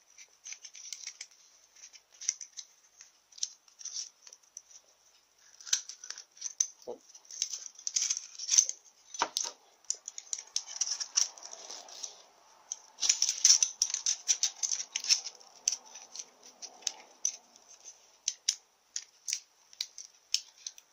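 Band-type piston ring compressor ratcheting in quick runs of sharp clicks as it is wound tight around the new seal ring on a cast iron Powerglide's front servo piston. The loudest runs come about eight and thirteen seconds in, with scattered light metal clicks and handling noises between.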